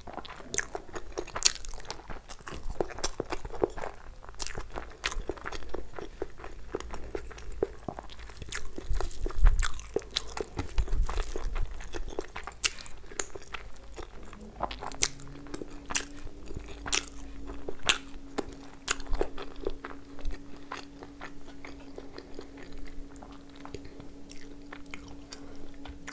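Close-up eating sounds: chewing with crunchy bites and wet, sticky mouth clicks as chicken and rice with crispy fried topping are eaten by hand. A steady low hum comes in about halfway through and holds.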